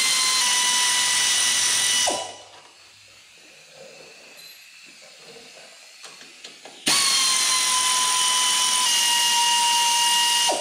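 Pneumatic air ratchet running at speed as it spins cylinder-head bolts out of a lawn tractor's aluminum-head engine: a steady whine over a hiss of air. It runs twice, stopping about two seconds in, then starting again about seven seconds in and running nearly to the end.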